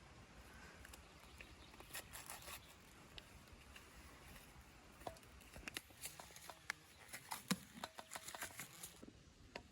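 Faint rustling and small scattered clicks of hands sowing seeds into garden soil, getting busier in the second half.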